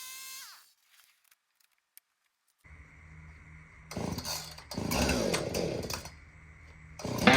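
A high, steady whine winds down and stops about half a second in, followed by near silence. From under three seconds in, a small gas engine idles and is revved up twice. Music starts at the very end.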